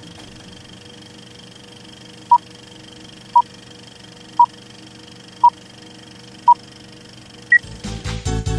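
Film-leader countdown beeps: five short identical beeps about a second apart, then one higher-pitched beep, over a faint steady hum. Music starts right after the last beep, near the end.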